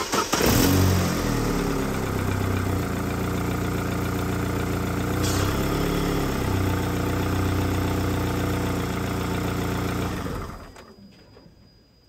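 Car engine heard from the open engine bay, starting up with a brief flare in revs as it catches, then idling steadily for about ten seconds before being switched off. The A/C is switched on, but its compressor does not engage because of a blown fuse.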